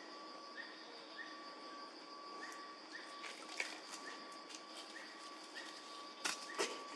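Forest ambience: a steady high insect buzz with a short chirp repeating a little under twice a second, and a few sharp clicks about halfway through and near the end.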